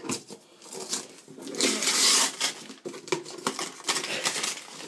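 Wrapping paper being torn and rustled off a gift box by hand, with a longer ripping stretch about two seconds in and small crackles and taps around it.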